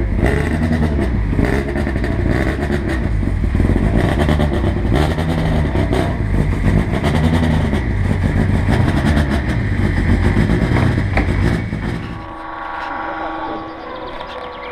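Rally car engine revved over and over, its pitch rising and falling about once a second. Near the end it gives way suddenly to a quieter, steadier engine note from a car in the distance.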